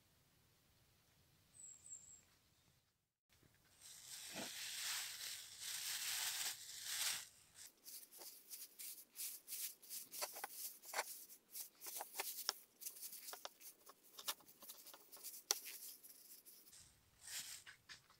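Thin plastic bag rustling and crinkling as gloved hands open it and lift out rusty steel scale parts. It is a continuous rustle for about four seconds, then many short crackles.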